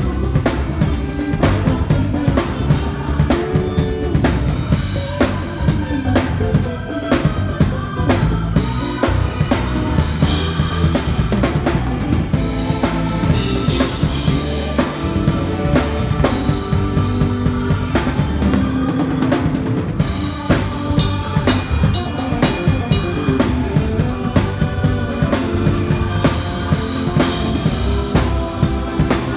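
Odery Fluence drum kit with a metal snare and Orion cymbals played live in a steady hymn groove: kick, snare and cymbals, with sustained notes from other instruments underneath. The cymbals wash more heavily about nine seconds in and again from about twenty seconds in.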